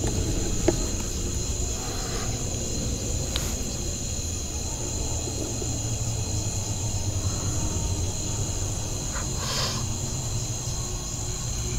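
Steady high-pitched chorus of night insects, crickets trilling without a break, over a low steady rumble, with a few faint brief sounds in between.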